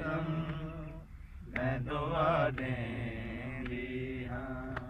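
Unaccompanied male chanting of a Punjabi noha, a Shia lament. The chant breaks off about a second in, resumes with a wavering line, then settles into long held notes that fade near the end.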